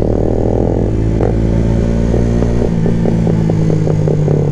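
Single-cylinder 125 cc Yamaha motorcycle engines running under way through loud aftermarket exhausts. The engine note shifts upward about two and a half seconds in, and a run of crackling exhaust pops follows, which the rider takes for the brother deliberately making his exhaust pop.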